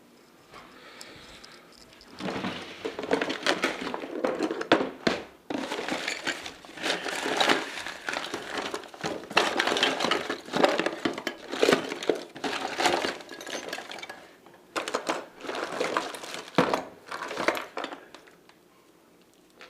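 Hard plastic clicking, creaking and crackling in close bursts as a Syma X8C quadcopter's plastic body is worked and pried apart by hand. It starts about two seconds in, pauses briefly twice, and stops near the end.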